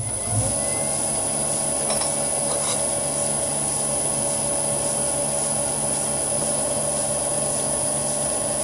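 Vintage Karger metal lathe starting up and then running steadily, its motor and spindle drive giving a steady high whine over a low hum.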